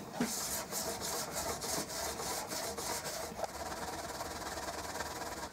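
Steel chisel back being rubbed rapidly back and forth on an MDF board charged with green polishing compound, a rhythmic scraping hiss stroke after stroke. This is the buffing stage that polishes the flattened back of the chisel to a mirror finish.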